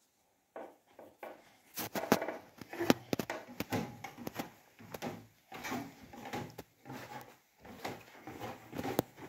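Footsteps on a wooden staircase: an irregular string of wooden knocks and thumps, about two a second, starting about half a second in.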